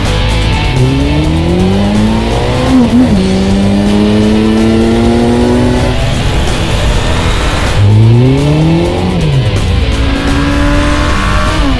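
Suzuki GSF1200S Bandit's inline-four engine accelerating hard, rising in pitch with a quick drop on an upshift about three seconds in, then pulling up again and easing off around six seconds. A second pull starts about eight seconds in, dips on another shift, and settles into steadier running.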